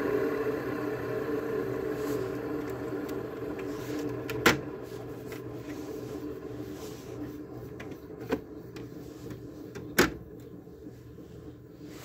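Mid-2000s Frigidaire window air conditioner running its fan only, without the compressor, a steady motor hum that grows quieter over the first few seconds. Three sharp clicks or knocks are spaced a few seconds apart.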